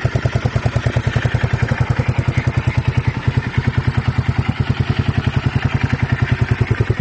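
Yamaha SRX600's air-cooled single-cylinder four-stroke engine idling steadily, a regular thump of about ten exhaust pulses a second.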